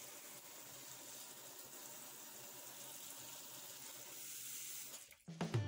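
Kitchen tap running steadily into a bowl of diced potatoes held in a stainless steel sink, the water splashing as the potatoes are rinsed; the flow cuts off suddenly about five seconds in.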